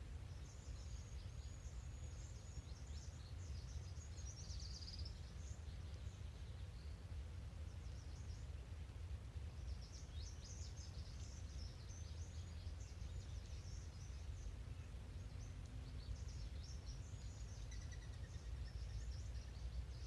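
Songbirds singing high, rapid song phrases in several bursts, over a steady low rumble.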